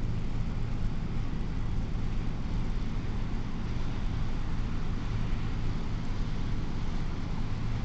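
Steady low droning hum of a cruise ship's machinery, with an even hiss over it.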